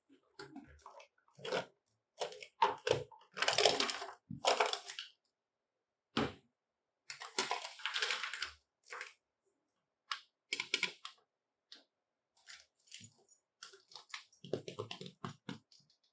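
Small plastic toy pieces being handled: irregular clicks and taps, with two longer rustling stretches about three seconds in and again about seven seconds in.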